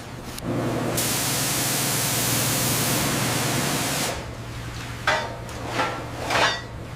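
Loud steady spraying hiss over a low hum, starting about half a second in and cutting off about four seconds in, then a few short rasping strokes.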